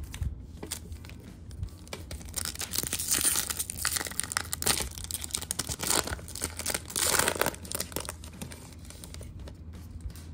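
Foil trading-card pack wrapper being torn open and crinkled by hand, an irregular crackle that comes in two denser spells, around three and seven seconds in.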